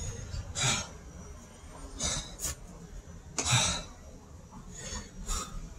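A man breathing hard, winded from repeated burpees and push-ups: about six heavy, hissing breaths at uneven intervals, the loudest about three and a half seconds in.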